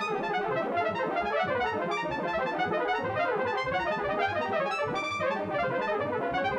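Computer-played French horn notes sonifying prime gaps: a dense, unbroken stream of many short and some longer notes sounding together across a wide range of pitches, each note's pitch and length set by the size of a gap between consecutive primes.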